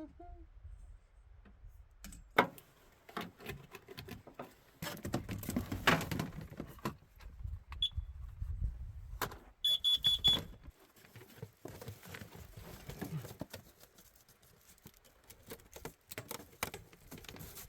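Gear being handled: scattered knocks, clicks and rattles, with a short high electronic beep about ten seconds in.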